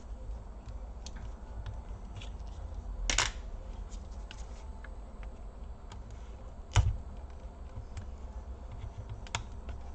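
Plastic case parts of a Samsung NP530 laptop clicking and tapping as they are handled and pried apart by hand, with a brief louder rasp about three seconds in and one sharp click near seven seconds.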